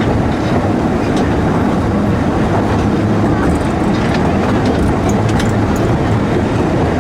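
Steam train running on its track: a steady rumble of wheels and carriages with a few faint clicks.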